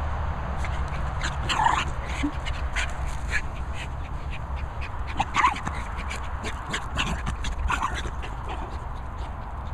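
A small dog barking in short yaps, with three louder yaps a few seconds apart, over a steady low rumble.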